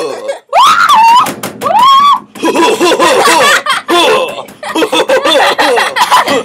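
Children laughing and shrieking loudly, with high rising-and-falling squeals in the first two seconds.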